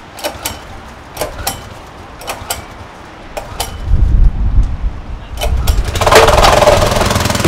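Plate compactor's small engine being started: a few sharp clicks and knocks, then about four seconds in a low rumble as it turns over, and about six seconds in it catches and runs loudly and steadily.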